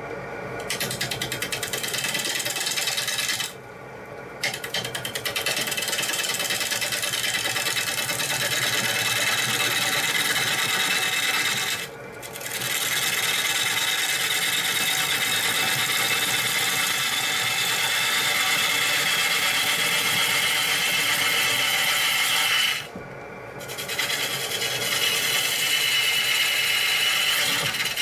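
Bowl gouge cutting a spinning maple bowl blank on a wood lathe, a steady rough hiss of shavings being peeled off as the profile is shaped. It breaks off three times for a moment as the gouge lifts off the wood, leaving the lathe's quieter hum.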